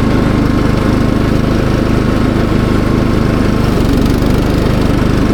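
Cox Stockman ride-on lawn mower engine running steadily while mowing, with an even, unchanging drone.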